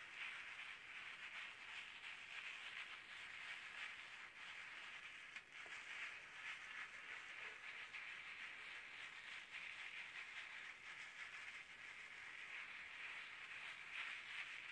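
Wet konjac sponge rubbed in circles over the skin of the face: a faint, continuous squishy rubbing.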